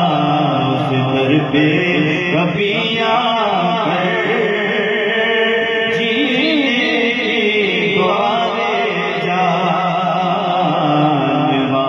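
Devotional naat chanting: voices holding a sustained, gliding melodic line without recognisable words.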